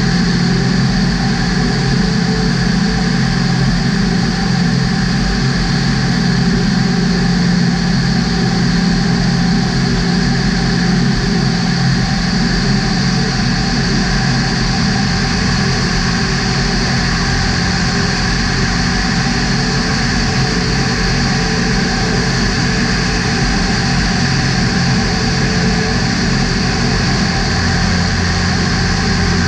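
Survey aircraft's engine and propeller droning steadily at cruise, with a constant pitch and no change in power.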